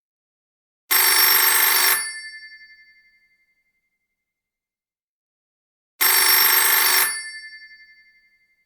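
Telephone ringing twice, about five seconds apart. Each ring lasts about a second, then fades away over about a second and a half.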